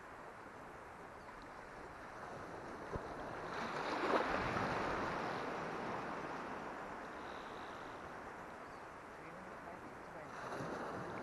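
Wind and water noise on a shallow saltwater flat, with a louder swell of rushing noise about four seconds in that fades over a couple of seconds.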